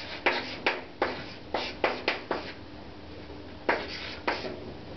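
Chalk tapping and scraping on a blackboard as a formula is written: a quick irregular run of short sharp strokes, then a pause, then two more strokes.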